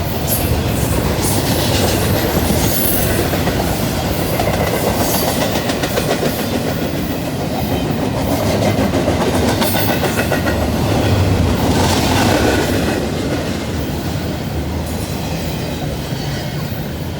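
A freight train's cars rolling past, wheels clicking steadily over the rail joints, with a few brief high-pitched wheel squeals.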